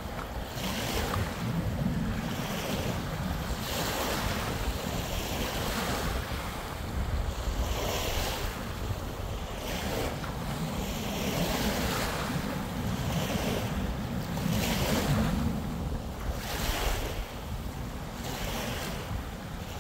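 Small Lake Superior waves lapping and washing up onto a sandy beach, a fresh wash every second or two, with wind buffeting the microphone.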